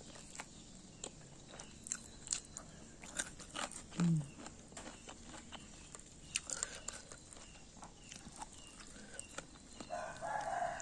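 A person chewing food with scattered small crunches and mouth clicks, and a brief hum of the voice about four seconds in.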